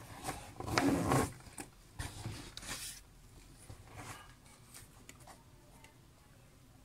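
Soft rustling and handling noise as items are taken out of a cloth bag, with a louder burst of rustling about a second in and a few light clicks.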